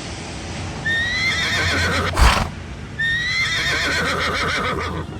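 A horse whinnying twice. Each call lasts about two seconds, rising briefly and then wavering downward, with a short noisy burst between the two.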